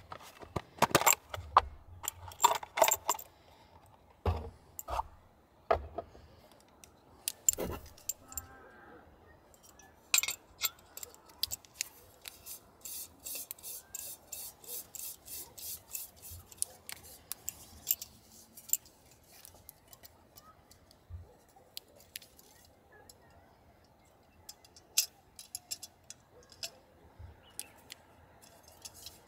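Light metal clicks, taps and rattles of a compact folding backpacking stove being handled: taken out of its plastic case, its pot-support arms snapped open, and screwed onto a gas canister. There is a run of quick, even clicks about halfway through.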